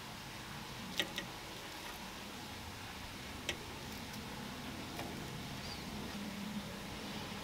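A metal fork clicking lightly a few times against a cling-film-lined loaf tin as halved hard-boiled eggs are set into it, over a steady low hiss.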